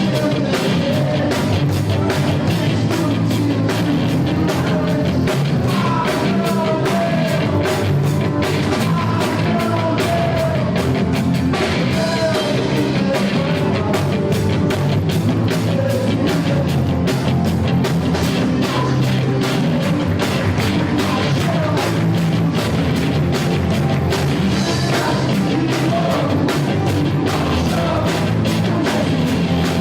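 Live band playing a loud rock-style gospel worship song, drum kit keeping a steady fast beat under guitars, with singing over it.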